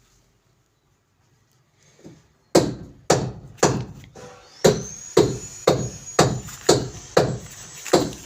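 Hammer blows struck at an even pace of about two a second, starting about two and a half seconds in after near silence.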